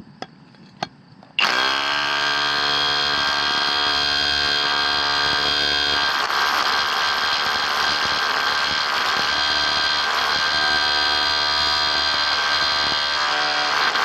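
Kobalt 24V SDS Plus cordless rotary hammer kicking on suddenly about a second and a half in after two light clicks, then running and hammering steadily at full speed, with a slight change in tone about six seconds in.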